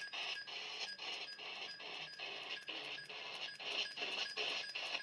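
FM radio receiver being tuned up the band step by step: static hiss and bits of signal, broken by short regular gaps about three times a second as it steps from channel to channel.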